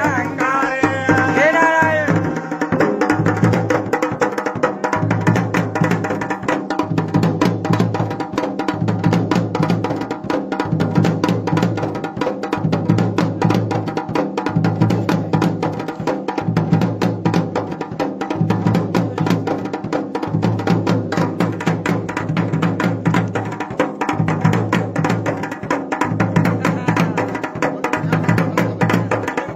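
Dhol and damau, the Pahadi folk drum pair, played together in a fast, dense rhythm, with a heavy low beat pattern repeating about every two seconds. A voice sings over the drums at the start and stops about two seconds in.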